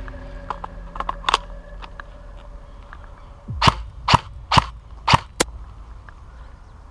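Airsoft gun firing: a few light clicks, then five sharp semi-automatic shots about half a second apart.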